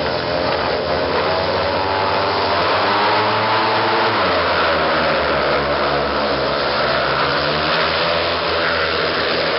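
Several speedway bikes' 500cc single-cylinder methanol engines revving hard together, their pitches rising and falling over one another as the bikes pull away down the dirt track.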